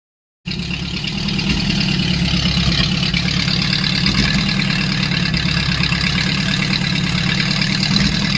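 Ford 351 Windsor V8 of a 1969 Mustang GT idling steadily through its exhaust, a low, even rumble. It starts abruptly about half a second in.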